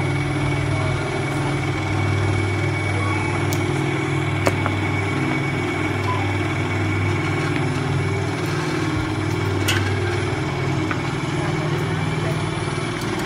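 Steady low motor hum, like an engine idling, with a faint steady high whine above it and a single click about four and a half seconds in.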